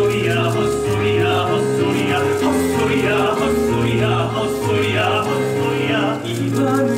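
Live musical-theatre accompaniment heard from the audience: held chords over a bass line that moves to a new note about every second.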